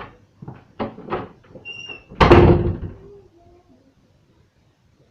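A few short knocks and a brief squeak, then a door shuts with a loud bang a little over two seconds in, ringing briefly.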